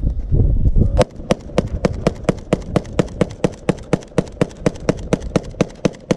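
AK-47 rifle in 7.62×39 firing a long rapid string of shots, about four a second, starting with a single louder shot about a second in. A low rumble comes before the first shot.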